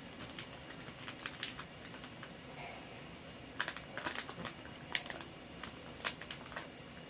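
A clear plastic zip-top vacuum storage bag handled by hand, its zipper pinched shut: an irregular scatter of light plastic clicks and crinkles.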